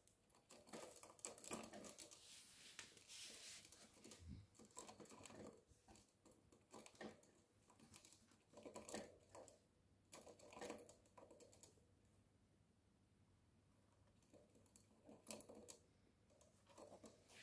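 Faint, irregular clicking of a guinea pig drinking from a cage water bottle, licking at the metal spout.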